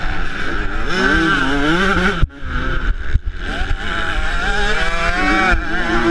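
2008 Yamaha YZ125's single-cylinder two-stroke engine revving hard, its pitch repeatedly climbing and dropping as the rider works the throttle, with two sharp momentary cuts in the sound about two and three seconds in.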